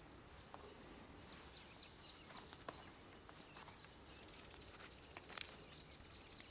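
Quiet pine-forest ambience with small birds chirping in short, high, repeated calls, a few faint clicks of footsteps on dry ground, and a slightly louder rustle about five seconds in.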